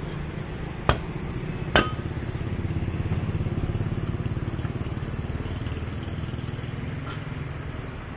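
Two sharp knocks, about a second and about two seconds in, as the end cover and rotor of a single-phase electric motor are worked loose from the stator. A steady low mechanical rumble runs underneath.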